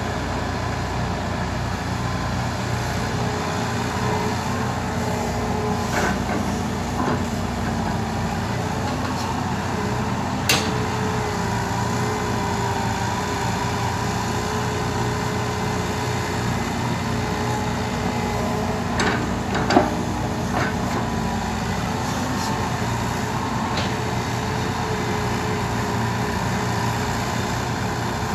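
Diesel engines of a Hitachi excavator and a six-wheel dump truck running steadily, the excavator's engine pitch shifting a little as it digs and swings a load of soil. Sharp knocks ring out about ten seconds in and twice around twenty seconds in.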